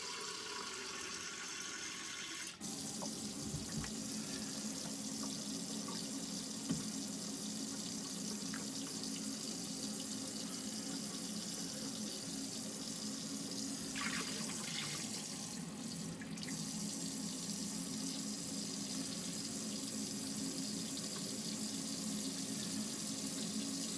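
Hot water from the camper's Alde heater running steadily from an open faucet into a sink, drawn continuously for a flow test. A low steady hum joins about two and a half seconds in.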